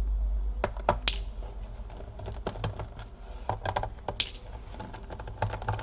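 Small irregular clicks and ticks, some in quick clusters, from a precision screwdriver working the screws out of a laptop's plastic bottom cover.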